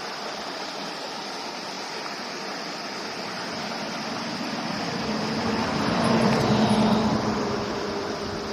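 Mountain stream rushing steadily. Around the middle it swells louder, with a low hum that then fades.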